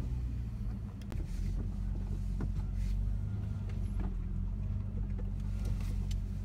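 Campervan engine running at low speed, a steady low hum heard from inside the cab, with a few faint knocks.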